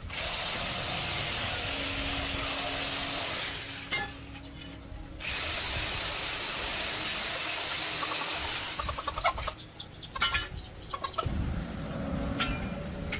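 A power tool runs with a loud steady hiss and a high whine in two bursts of about three and a half seconds each. After that comes a quick run of metal clinks and knocks, then a low rumble near the end.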